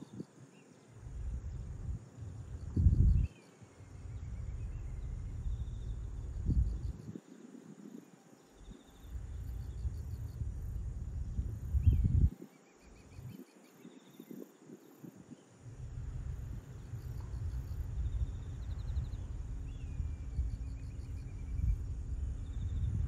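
Wind rumbling on the microphone in gusts, loudest about three and twelve seconds in, over a faint steady background of insects trilling.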